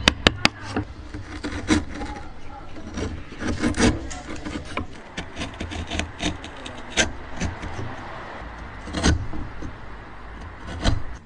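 Steel chisel paring wood by hand: a scraping cut with sharp cracks as fibres split and shavings break away every second or two. It opens with a few quick sharp knocks on the chisel.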